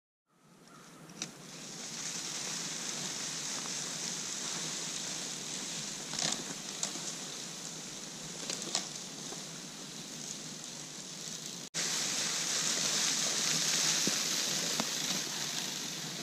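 Cub Cadet push broadcast spreader throwing pelletized lime onto dry, leaf-covered ground: a steady hiss with a few light ticks.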